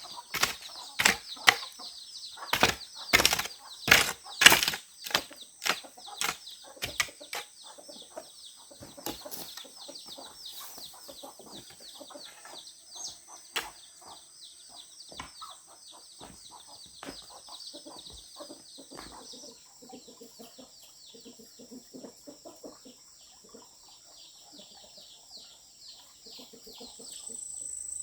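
A run of sharp strikes, about two a second, over a steady high buzz of insects. The strikes thin out and grow fainter after about eight seconds.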